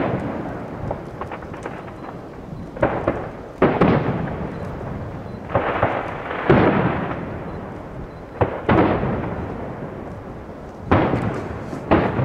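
Aerial firework shells bursting high overhead during a large display: loud booms, mostly in pairs every few seconds, each trailing off in a long rumbling echo.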